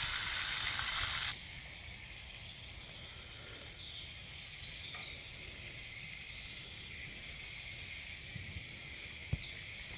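Bacon sizzling in a cast iron frying pan over campfire embers, cutting off abruptly about a second in. Then a faint woodland morning chorus of birds singing, with scattered short chirps.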